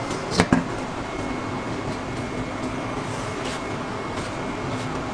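Steady machine hum with a couple of faint steady tones, like a fan or motor running, and two sharp knocks in quick succession about half a second in.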